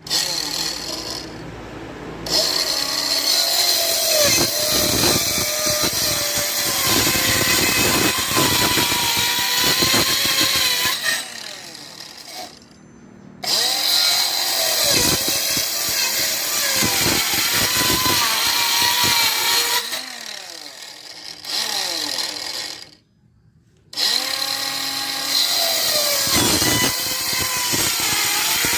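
Homemade 20-volt cordless mini circular saw, a DC motor driving a salvaged circular-saw gearbox, cutting through wood in three passes with short pauses between. The motor pitch sags and recovers as the blade takes the load.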